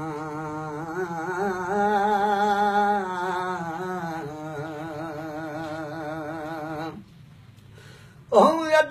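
A man singing unaccompanied, holding long wavering notes without words. He breaks off about seven seconds in and starts singing again just before the end.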